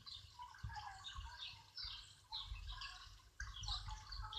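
Rain dripping and pattering, with birds chirping faintly.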